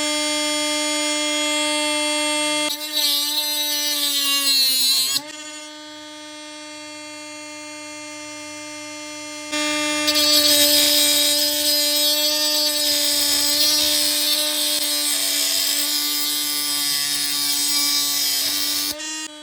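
A grinder running with a steady hum, loaded twice: a short stretch about three seconds in where the pitch wavers and sags, then a long stretch of loud grinding hiss from about ten seconds in. It drops off sharply near the end.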